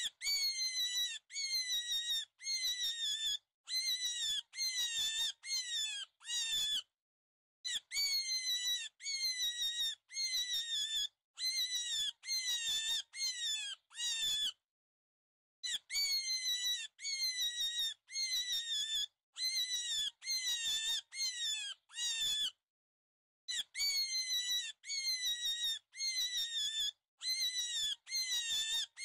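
Repeated high-pitched animal squeaks, each one falling in pitch, about three a second. They come in runs of a few seconds with short silent breaks, the longest about a quarter and halfway through.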